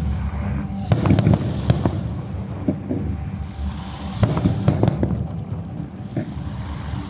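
Fireworks bursting: a cluster of sharp bangs and crackles about a second in, and another around four to five seconds in, over a steady low rumble of background noise.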